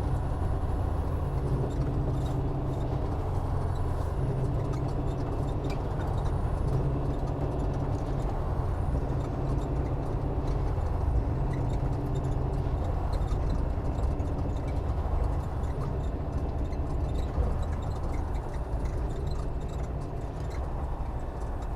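Semi truck's diesel engine heard from inside the cab, running as a steady low drone with the engine (Jake) brake engaged on a downhill grade. It eases off slightly in the last few seconds.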